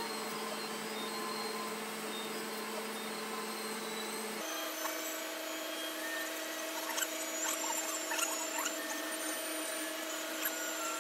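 A steady mechanical hum, like a small motor, that steps up to a higher pitch about four seconds in, with a few faint small clicks and chirps over it.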